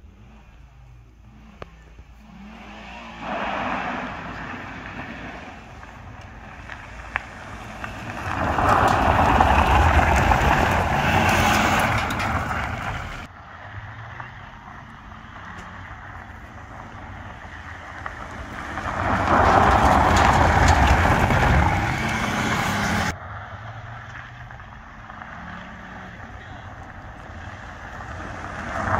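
A sedan driven hard on a gravel road: its engine revs and its tyres scrabble on the gravel, swelling to two loud passes about 8 and 19 seconds in, each cut off abruptly.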